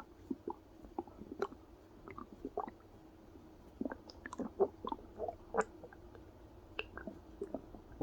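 Human stomach and intestines gurgling during digestion: a string of irregular short squelches and pops, busiest about four to six seconds in, over a faint steady hum.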